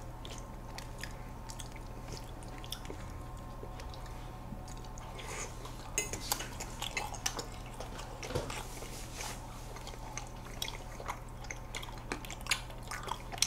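Metal forks clinking and scraping on ceramic plates, with soft wet mouth sounds of ice cream being eaten. The clicks are scattered and busiest about six to nine seconds in, over a low steady hum.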